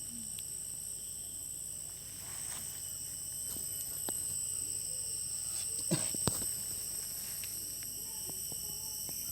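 Steady chorus of insects, several constant high-pitched tones held without a break, with two sharp knocks about six seconds in.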